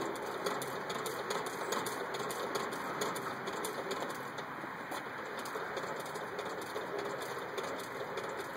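Singer 29K71 cobbler's patcher sewing machine worked by its foot treadle, stitching through thick leather with a run of repeated clicks from its mechanism.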